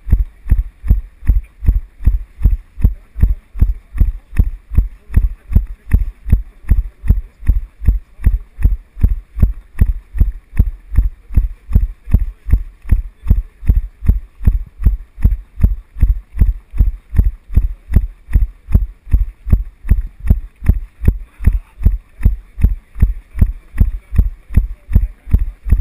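Steady, even low thuds, nearly three a second, from a runner's footfalls jolting a body-worn GoPro action camera at running pace.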